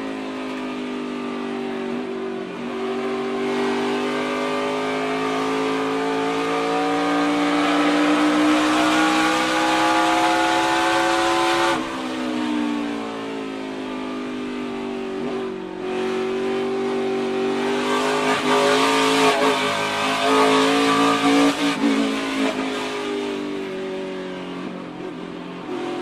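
NASCAR Xfinity stock car's V8 engine at high revs, heard from an onboard camera. Its pitch climbs steadily, drops abruptly about halfway through, then climbs again and turns rough and uneven before falling away near the end.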